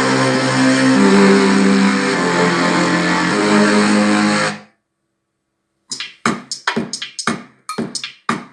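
Guitar music played loud through a small Taramps Home 80W stereo amplifier and bookshelf speakers, cutting off abruptly about four and a half seconds in. After a second of silence comes a quick run of about ten sharp clicks.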